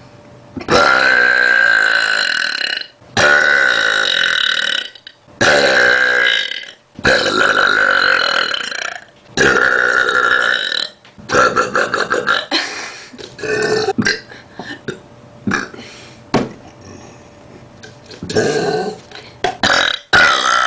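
A person belching loudly over and over: about five long, drawn-out belches one after another, each around two seconds, followed by a run of shorter, choppier burps.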